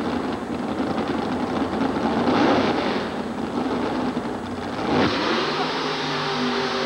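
Nitrous-injected 454 cubic-inch Chevy V8 of a Jeep CJ5 mud racer running at full throttle down the mud track, with a sharp bang about five seconds in. The bang is a nitrous oxide explosion in the intake manifold at the finish line: the nitrous system was left on as the engine was shut off and an intake valve hung open, giving shotgun-like blasts out of the exhaust headers.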